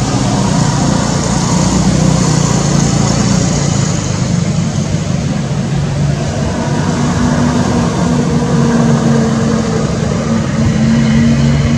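A motor engine running steadily under a loud, dense noise, its low hum drifting slightly in pitch.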